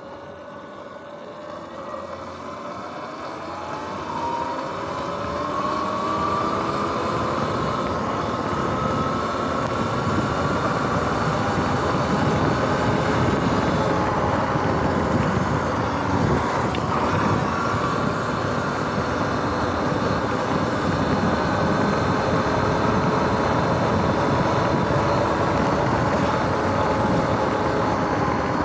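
Sur-Ron X electric dirt bike's motor and drivetrain whine rising in pitch over the first few seconds as it accelerates, then holding steady at cruising speed, over wind rush and tyre noise on the wet road.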